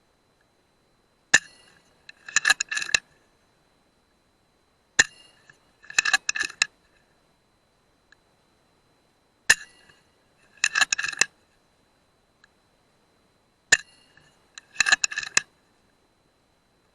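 A .177 FX Dreamline PCP air rifle fired four times, each shot a single sharp, quiet crack. Each is followed about a second later by a quick run of metallic clicks as the action is cycled to load the next pellet. A faint steady high whine runs underneath.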